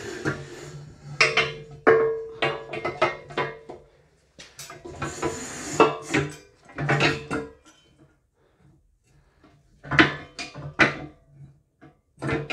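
Steel lift post parts clanking and knocking as the hydraulic cylinder and lift head are shifted about inside the post. Some of the knocks ring on briefly, and the sound comes in bursts with a quiet pause of about two seconds near the middle.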